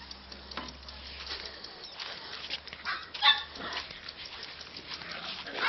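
Six-week-old Samoyed puppy giving a single short, high yip about three seconds in, with a smaller squeak just before it.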